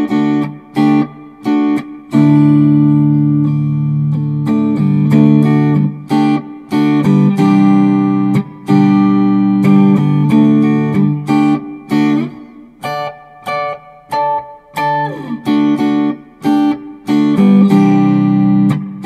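Firefly FFLS electric guitar with two P90 pickups, both on in the middle position, played clean through a Monoprice 15 amp and a Celestion V30 cabinet. Picked and strummed chords and single notes ring out, with a few bent notes in the second half.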